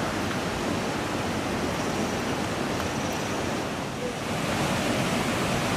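Steady outdoor rushing noise, dipping briefly in level about four seconds in.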